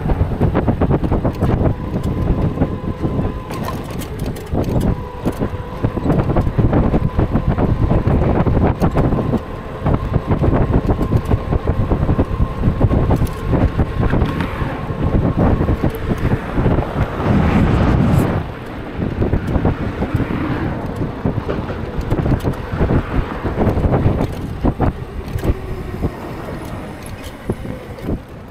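Wind buffeting an action camera's unshielded microphone while riding in traffic, a dense rumble with constant flutters. A thin steady whine runs under it until about halfway, and vehicles swell past a little after the middle.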